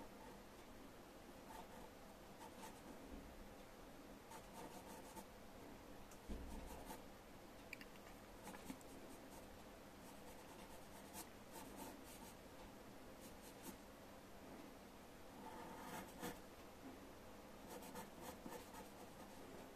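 Faint scratching of a graphite pencil on paper, short strokes coming in little bursts again and again as an eye is sketched. About six seconds in there is a soft low thump.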